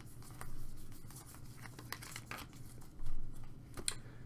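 Stack of chrome trading cards being flipped through by hand, each card slid off the stack with a short papery swish and scrape; the strokes come irregularly, the loudest about three seconds in.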